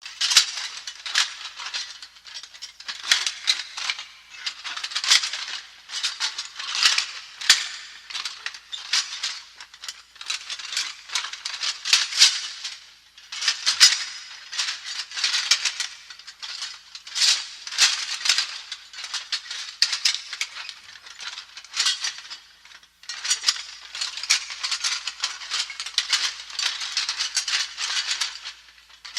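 Plate armour clanking: metal plates rattling and clinking against each other in repeated swells about one to two seconds apart, with two short breaks.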